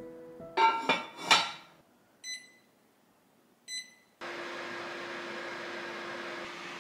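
Cast-iron lid set onto the Vermicular Rice Pot's cast-iron pot with a couple of ringing clanks. Then two short beeps from the heater base's buttons, about a second and a half apart, and the heater starts a steady whirring hum as cooking begins.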